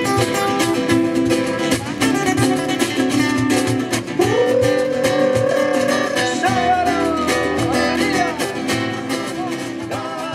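Live Latin acoustic band: several acoustic guitars strumming and picking over a steady cajón and hand-drum rhythm. A long held note slides up into place about four seconds in, followed by a few gliding notes.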